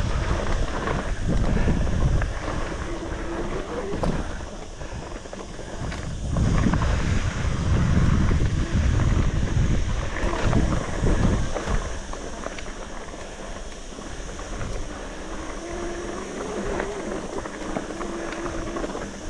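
Wind buffeting the microphone on a mountain bike riding a dirt trail, in gusts that swell and fade, with the bike's rattles and knocks over rough ground. A faint whine comes in twice.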